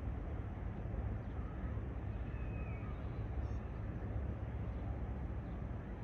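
Steady low outdoor rumble over a town and bay, with a few faint, short chirps about two to three seconds in.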